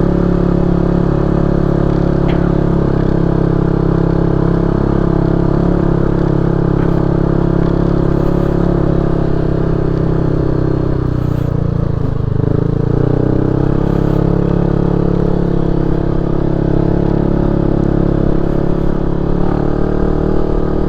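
Motorcycle engine running steadily under way, its pitch dipping briefly about halfway through and then climbing back up.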